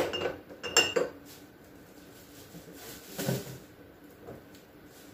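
Glass condiment jars and bottles clinking against each other as they are handled: two sharp ringing clinks in the first second, then a duller knock about three seconds in.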